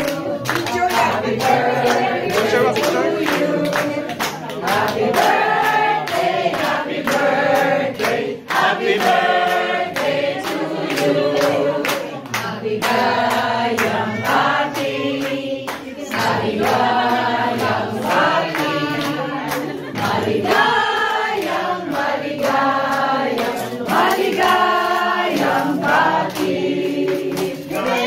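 A group of people singing together, clapping along in a steady beat.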